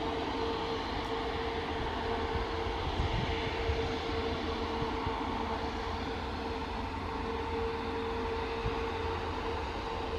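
Jet engines of a Cathay Pacific twin-engine airliner on the runway, running with a steady whine, over a low rumble of wind on the microphone.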